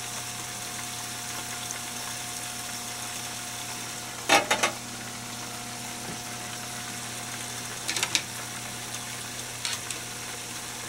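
Chicken frying in oil in a pressure-cooker pot, a steady sizzle with the oil at about 230 °F. Metal tongs clink against the pot about four seconds in, again near eight seconds and just before the end.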